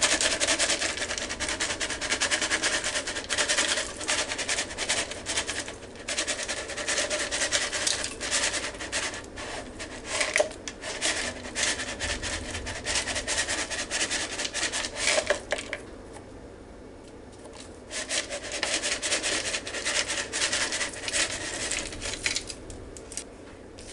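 Dry crispy fried onions shaken out of a canister and pattering onto a casserole: a continuous dry crackling rustle of many small pieces, stopping for about two seconds partway through and then going on.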